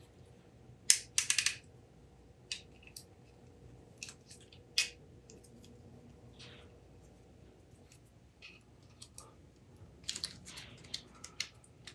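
Small machined aluminum parts of a stop-motion puppet arm clicking and clinking as they are handled and fitted together: scattered light clicks, bunched about a second in and again near the end.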